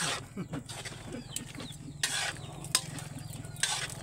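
Metal ladle stirring in a large wok: sharp clinks of the ladle knocking the pan, with two short scraping strokes about two seconds in and near the end.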